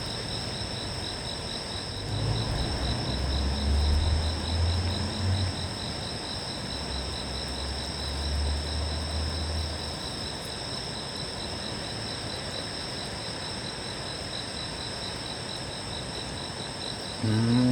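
Insects chirring in a steady chorus of high, thin tones, one of them finely pulsed. A low rumble comes in about two seconds in and fades out near the ten-second mark.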